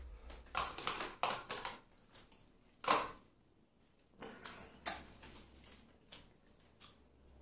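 Faint, scattered clicks and scrapes of a metal spoon in a bowl while eating, with soft mouth and breathing noises. The sharpest click comes about three seconds in.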